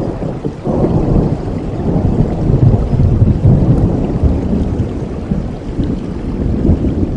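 Steady rain with a long, low roll of thunder that swells about a second in and slowly fades.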